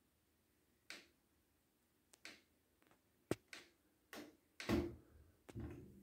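Buttons on a Hoover washing machine's control panel being pressed repeatedly: about eight short, irregular clicks as a setting on the display is stepped through.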